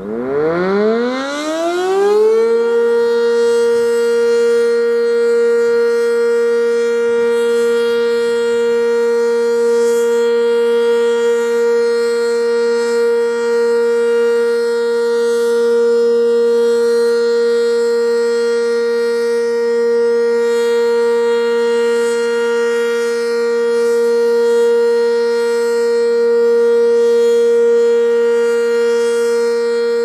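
Sentry 10V outdoor warning siren winding up over about two and a half seconds and then holding one loud, steady tone: the alert signal of its weekly test.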